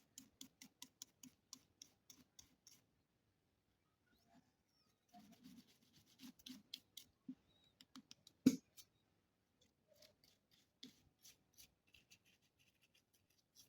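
A soft brush scrubbing dust off the inside of an Oraimo Wrap Bluetooth speaker: a run of quick, faint strokes at about five a second, then after a pause another cluster of strokes with one sharper tap, and scattered light ticks near the end.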